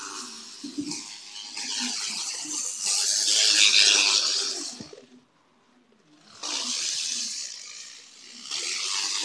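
N-gauge model train running on its track, a rushing whir of motor and wheels that swells loud as it passes close, falls almost silent for about a second just past the middle, then comes back.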